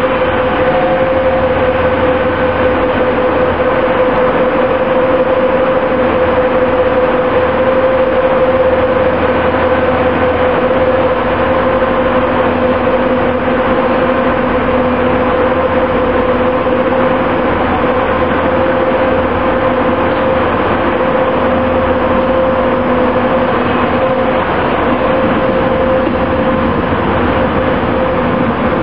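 A passenger train standing at a platform with its engines and on-board equipment running: a steady hum with one constant mid-pitched tone over a low rumble.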